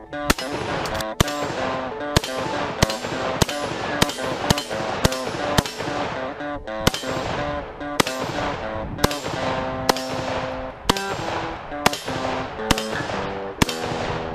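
A rifle firing about twenty shots at an uneven pace, one every half second to a second, each with a short ringing tail. Guitar-driven background music plays underneath.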